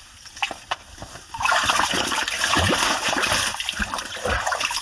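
A large burbot splashing and thrashing in the water of an ice hole as it is gaffed and hauled out. The splashing starts suddenly about a second and a half in and keeps going.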